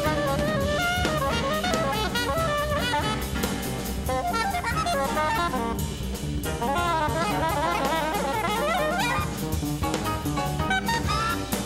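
Soprano saxophone soloing in fast, winding runs of notes over a jazz band with drum kit, played live.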